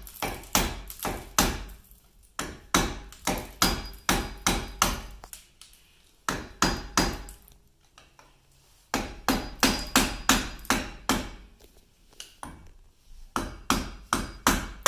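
Hammer striking a flathead screwdriver to drive it under a cover and pop it off: bursts of sharp taps, about three a second, broken by short pauses.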